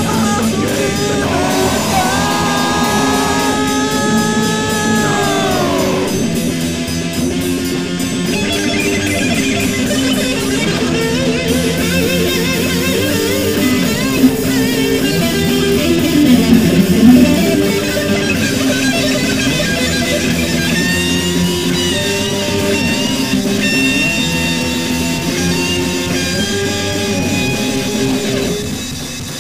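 Punk rock music: a loud instrumental passage led by guitars, with a long held note that bends down about six seconds in.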